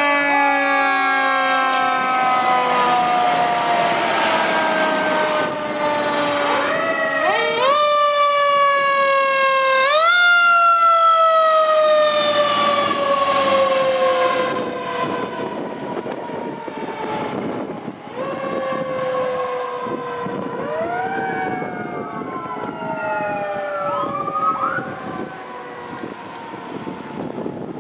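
Fire engine sirens on passing fire trucks. One siren's pitch slides slowly down and is pushed quickly back up twice, about seven and ten seconds in, then grows fainter as the trucks go by. Near the end another siren sweeps up and down.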